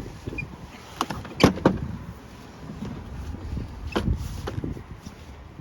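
Parts of a Pride mobility scooter knocking and clunking as they are fitted into place during assembly: a few sharp knocks about a second in, and two more near four seconds.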